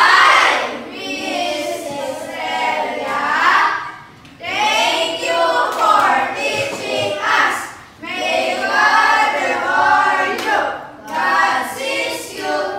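A group of children singing an action song together in unison, in three phrases of about four seconds with brief breaks between them.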